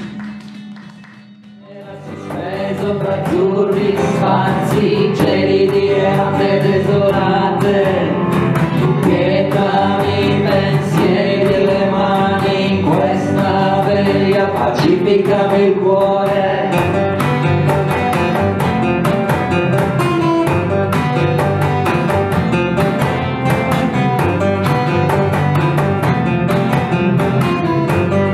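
Acoustic group playing a song: strummed acoustic guitars and a cajón beat under a sung melody. The music comes in about two seconds in after a brief lull.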